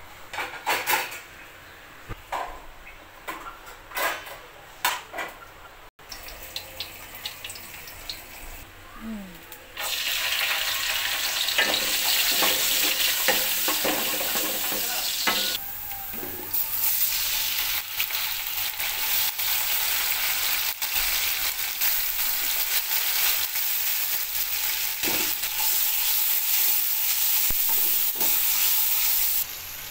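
Sliced onions and whole spices sizzling in hot oil in an aluminium pot, stirred with a wooden spoon that scrapes and taps against the pot. Before that there are scattered clicks and knocks, and the loud sizzle sets in about ten seconds in.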